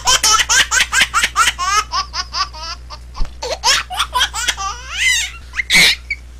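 High-pitched laughter in a rapid run of short 'ha-ha' pulses, easing off partway through, with one short loud burst near the end.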